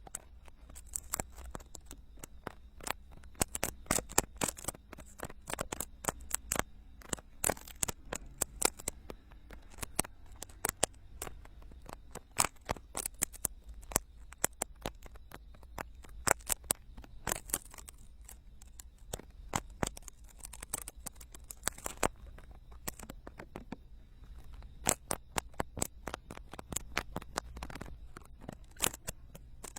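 Ear-cleaning tools scraping and picking at the silicone ears of a binaural microphone, close up: a dense, irregular run of crisp clicks and scratches.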